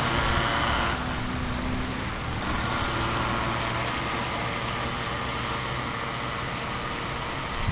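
A 16-inch Tornado RC electric boat, 9.6-volt powered, running across the water. Its motor and wake make a steady whirring hiss over a low hum.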